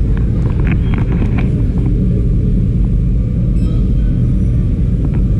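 A loud, steady low rumble, with a few faint clatters and distant voices above it.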